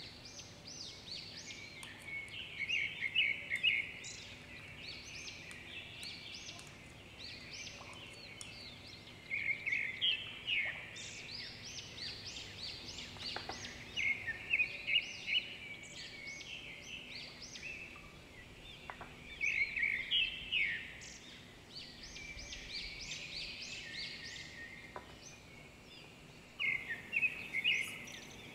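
A bird singing: bursts of quick high chirps, each burst a second or two long, repeated every few seconds over faint steady background noise.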